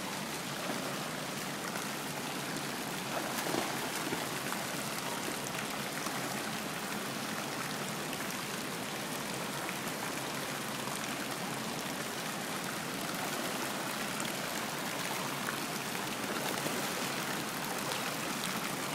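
Running water at a swimming pool, a steady even rush with no break.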